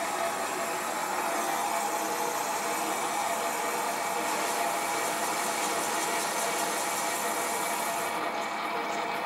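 Sieg SC4 bench lathe running at 300 RPM on the carriage's fine power feed while its tool turns the outside diameter of a cast iron piston: a steady mechanical running noise with a cutting hiss. The high hiss thins out near the end.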